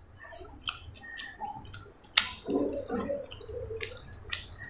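A person chewing a crispy, flaky ghee parotta close to the microphone: scattered crunches and mouth clicks, the sharpest about two seconds in.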